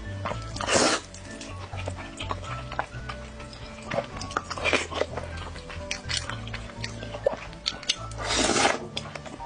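Close-up eating sounds of noodles: two long slurps, about a second in and near the end, with wet chewing and smacking clicks between them, over background music with a bass line.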